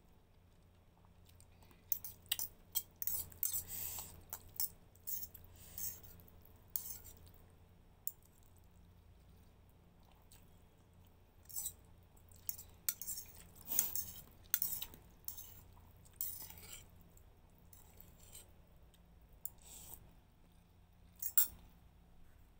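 A metal fork clinking and scraping against a ceramic bowl while pancit canton noodles are slurped and eaten, in short irregular bursts with pauses between.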